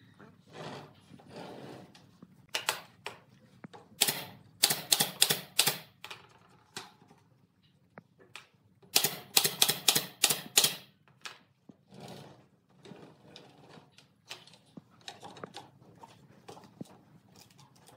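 Bursts of sharp plastic and wood clicks and knocks, about four to five a second, as plastic crates and plywood panels are fitted onto a wooden pallet base. Single knocks fall in between.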